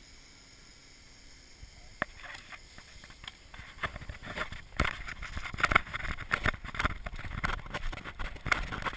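Irregular knocks and rustling of handling noise while on the move, starting with a single knock about two seconds in and growing into a dense clatter from about four seconds on.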